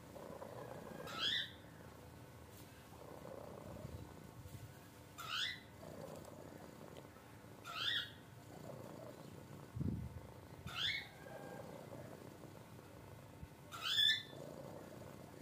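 Domestic cat purring steadily while nuzzling and kneading a blanket. Five short chirps, each rising quickly in pitch and coming a few seconds apart, stand out above the purr, and there is one low thump about two-thirds of the way through.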